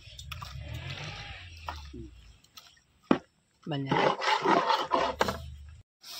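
Long metal ladle scraping and stirring thick chicken masala against the side of a large metal cooking pot for the first two seconds or so, followed by a single knock. About four seconds in, a person's voice speaks briefly.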